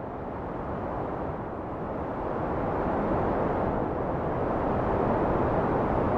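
Wind rushing in a dense, even rumble with no distinct gusts or tones, swelling gradually louder as it fades in from silence.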